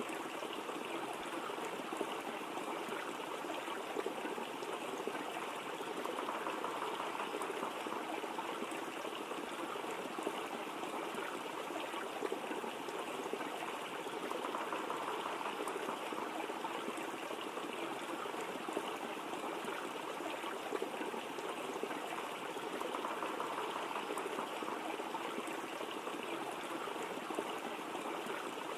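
Waterfall running: a steady rush of falling water with slight slow swells.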